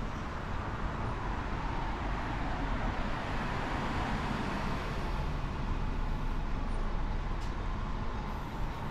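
Road traffic on a town street: a car passing close by, louder around the middle, over a steady low rumble.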